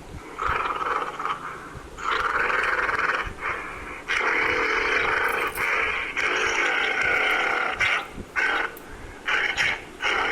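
Gorilla vocalising: a short call, then long calls lasting a few seconds each, then a run of short, quick calls near the end.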